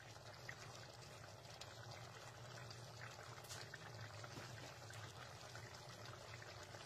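Squid and eggplant stew in coconut milk simmering in a pan, a faint steady bubbling and crackling over a low hum.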